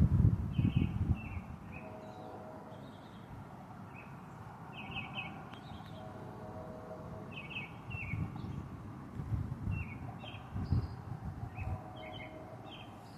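Small songbirds chirping in short, repeated calls. Low rumbling bursts come and go at the start and again about two-thirds of the way through.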